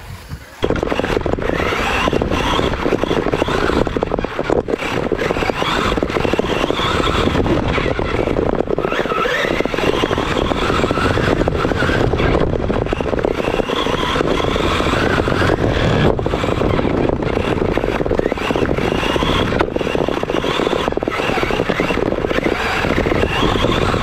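Electric radio-controlled car driving fast over a bumpy dirt track, heard from on board: a dense, steady rumble and rattle of chassis, tyres and motor that starts abruptly about half a second in.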